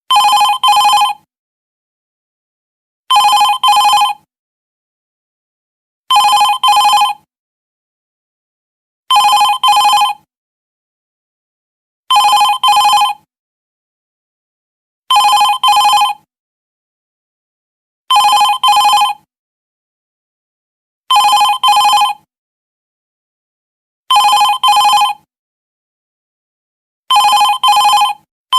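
Office telephone ringing: a double ring, two short bursts together lasting about a second, repeating every three seconds about ten times.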